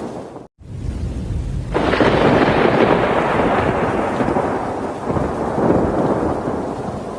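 Thunder: a steady rumble that cuts out briefly about half a second in, then a sudden loud thunderclap a little under two seconds in that rolls on and slowly fades, swelling once more near the end.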